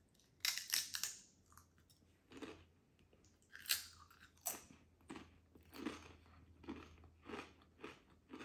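Doritos tortilla chips being bitten and chewed: a sharp crunching bite about half a second in, another loud bite near the middle, then crunchy chewing repeating roughly every two-thirds of a second.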